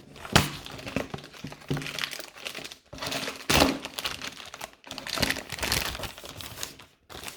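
Sunglasses packaging being opened by hand: irregular crinkling and rustling with a few sharp clicks, the loudest about half a second in and again around three and a half seconds in.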